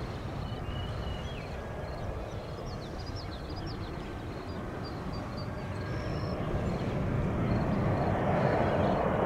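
Jet airliner engines over a steady low rumble, growing louder from about six seconds in as the plane comes closer.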